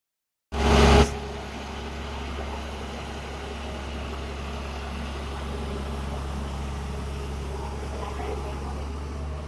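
Heavy diesel engine of construction machinery, an excavator or dumper truck, running steadily with a low, even drone. It opens with a brief loud rush of noise about half a second in.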